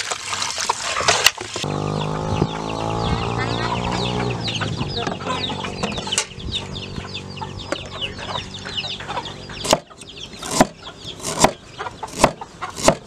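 Chicks peeping in short, high, falling chirps throughout, over water sloshing in a basin as fish are rubbed clean at the start and a steady low hum through the middle. Near the end a cleaver chops on a round wooden block, a knock every second or so.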